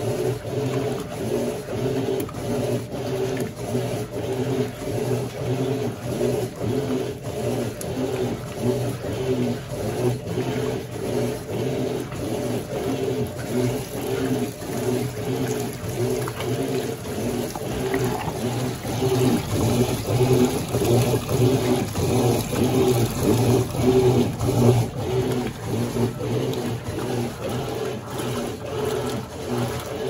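Electrolux LQ11 Turbo Flex top-load washing machine agitating a load of bedding and towels in water: its agitator churns back and forth in a steady rhythm of about two to three strokes a second over a steady motor hum, with water splashing louder for several seconds in the middle.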